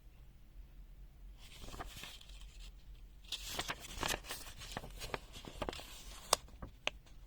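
Handling noise: a short rustle, then a run of small sharp clicks and taps with more rustling, the loudest a single crisp click about six seconds in.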